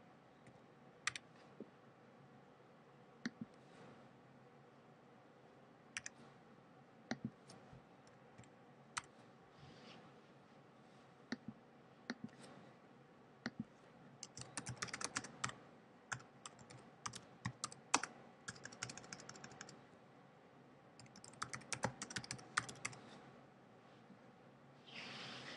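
Typing on a computer keyboard: scattered single clicks at first, then quick runs of keystrokes about halfway through and again near the end as a short phrase is typed into a spreadsheet cell.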